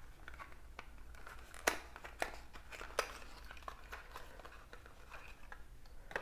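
Small cardboard box being opened and handled: paper and cardboard rustling with a series of sharp clicks and taps, the loudest a little under two seconds in and again at about three seconds.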